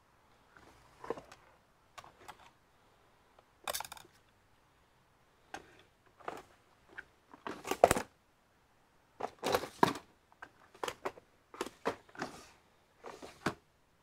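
Irregular clicks, taps and rustles of small tools and parts being handled on a repair bench, about a dozen short knocks with the loudest near the middle.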